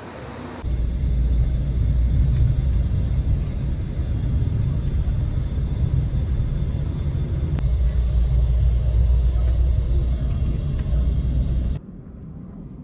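Steady low road rumble and wind noise from inside a moving road vehicle, starting abruptly about half a second in and cutting off about a second before the end.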